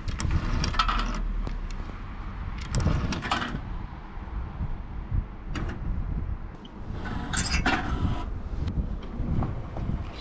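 Coins being pushed into a Parkeon parking ticket machine and dropping inside: several short clinks and clatters a few seconds apart, over a steady low rumble.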